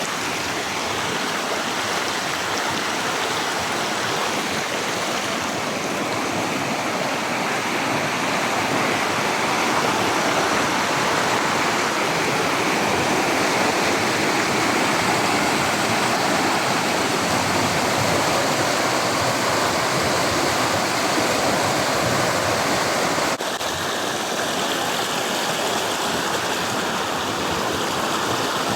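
Rushing water of a canyon stream, a steady noise throughout. It changes abruptly a little past two-thirds of the way through, where the higher part of the sound drops slightly.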